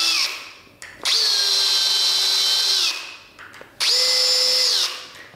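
Cordless drill-driver driving screws through a steel pocket-door hanger bracket into the top edge of a walnut door: the end of one run, then two runs of about two seconds and one second. The motor's whine dips in pitch at the end of each run as the screw seats.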